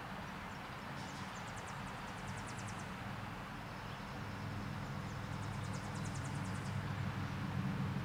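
Bald eagle calling: two runs of rapid, high-pitched chittering notes, each a second or two long. Under them is a steady low rumble of traffic that grows louder near the end.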